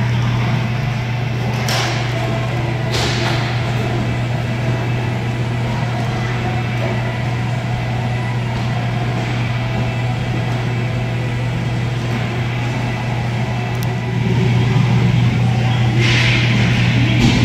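Inline hockey rink sound: a loud steady low hum throughout, with sharp clacks of sticks and puck about two and three seconds in, and a louder flurry of clatter near the end.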